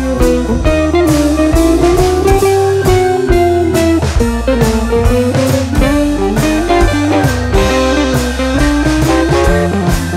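Background music: a blues-style guitar tune over a drum kit keeping a steady beat.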